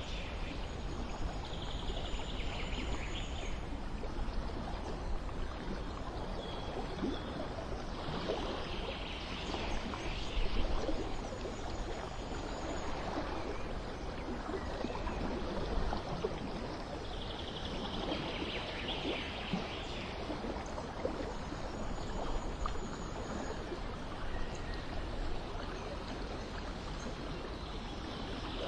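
Steady running, trickling water, with brief higher-pitched patches coming and going every several seconds.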